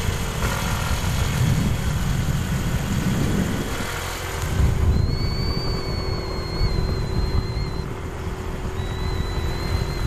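Wind buffeting the microphone of a phone carried on a moving motor scooter, with the scooter's engine running underneath.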